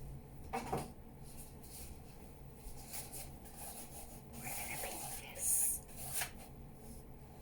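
Faint rubbing and handling noises from a canvas painting being taken down and moved about, with a few light knocks and a short, louder scrape a little past the halfway point.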